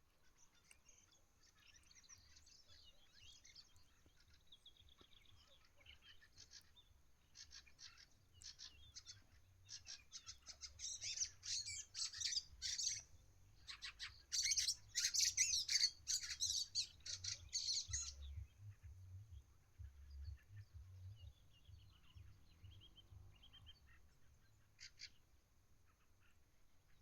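Small birds chirping in rapid runs of quick notes, busiest and loudest in two spells around the middle, then thinning to scattered calls. A faint steady high-pitched whine runs underneath.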